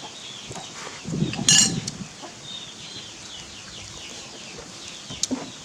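Chickens clucking, with a steady run of short falling chirps and a brief loud squawk about a second and a half in.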